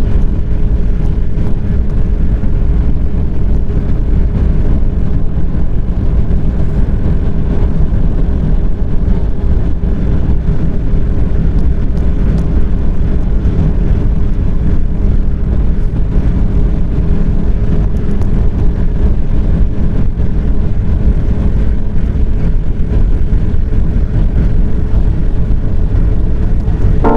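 A vehicle running steadily: a loud, continuous low rumble with a faint steady hum above it.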